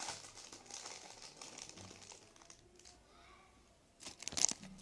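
Handling noise of jewelry on a table: soft rustling and crinkling, then a few sharp metallic clinks about four seconds in as the pieces are picked up and knock together.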